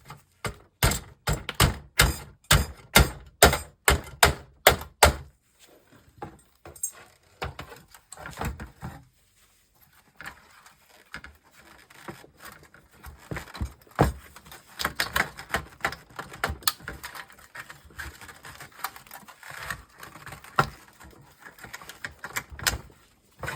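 A fast run of sharp knocks, about three a second for some five seconds, then scattered clicks and rattles of hard plastic and metal parts. This is a stuck power board being worked loose from an old CRT monitor's chassis.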